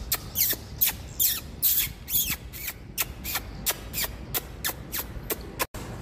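A person calling swiftlets by mouth, making a fast, uneven run of sharp squeaky chirps that fall in pitch, about three or four a second. It stands in for the recorded lure call normally played to draw the birds.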